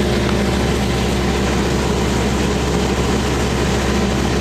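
Heavy engine of work machinery running steadily at one constant speed, with a deep, even hum under a loud noisy drone.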